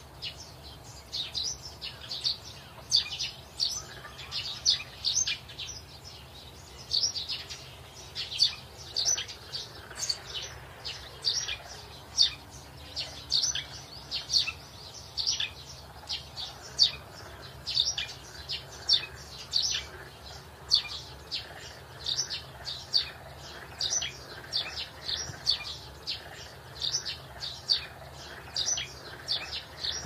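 A flock of young chickens peeping continuously: short, high calls, several a second, with no pause.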